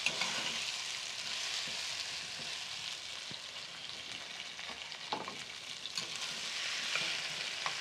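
Sliced tomatoes, onion and garlic sizzling steadily in hot oil in a clay cazuela, with a few light strokes of a spatula stirring them late on.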